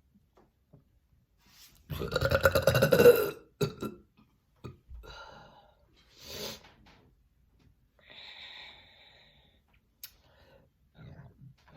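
A long, loud deliberate on-command burp about two seconds in, lasting about a second and a half, followed by a few short, much fainter sounds.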